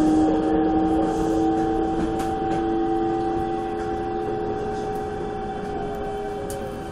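Electric train's traction motor whine from a Toei 5300 series car, several steady tones held at one pitch and slowly fading, with a few sharp clicks of the wheels over rail joints.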